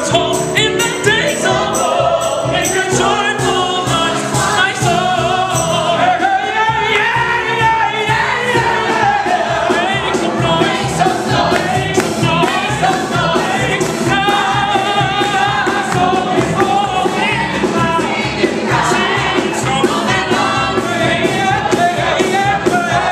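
A male soloist and a mixed vocal ensemble singing a musical-theatre number live, accompanied by piano, bass and drums.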